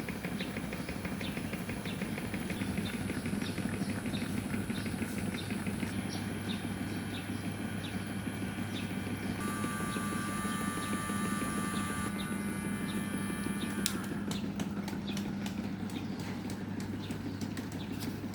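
Small homemade electric fans running: a steady motor hum with repeated ticking throughout, which gets denser near the end.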